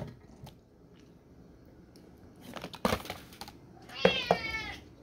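A few clicks and knocks of a plastic Feline Greenies treat tub being handled, then a cat meows once, about four seconds in, the call falling in pitch.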